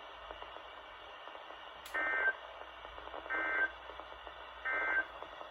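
Three short bursts of NOAA Weather Radio SAME digital data tones over radio hiss, each about a third of a second and just over a second apart, with a click just before the first. Bursts this short, right after the closing line of a broadcast, are the end-of-message (NNNN) code that closes the previous message.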